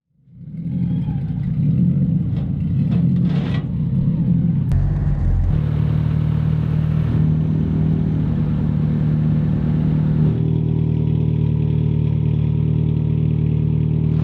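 Car engine running at a steady speed with a low, even hum, changing abruptly about five seconds in and again about ten seconds in, with a sharp click just before the first change.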